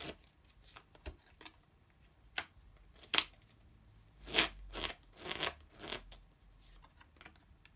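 Lenormand cards being handled and laid down on a table: a few separate soft flicks and slaps, then a quick run of several more about halfway through.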